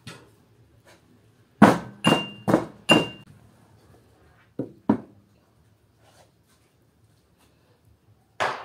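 Pestle striking inside a mortar: four sharp knocks in quick succession around two seconds in, two more around five seconds, and a last knock near the end. Some strikes leave a short high ring.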